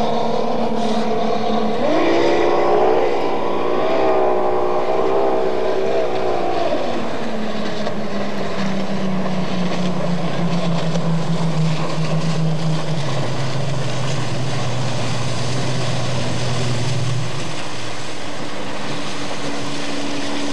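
Tunnel-hull speedboat engine running hard at speed over a steady hiss of water and spray. The engine note wavers up and down for the first few seconds, then settles into a lower drone that slides steadily lower for about ten seconds.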